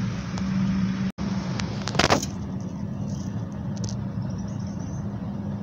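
Steady low mechanical hum, like an engine idling, over background noise, with a brief rattle about two seconds in.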